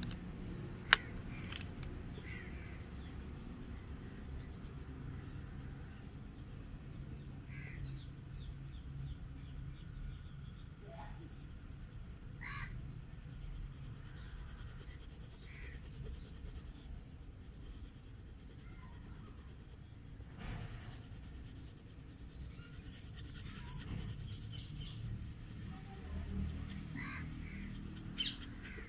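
A red oil pastel rubbing back and forth on paper as a petal is coloured in, over a low steady background rumble, with short bird calls now and then. A single sharp click about a second in.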